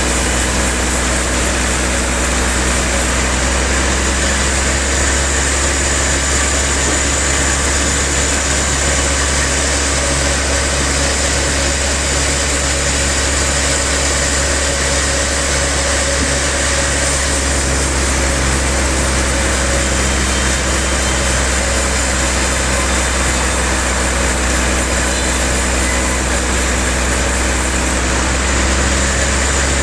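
Sawmill machinery running steadily, a constant loud hum with a thin high whine and no pauses.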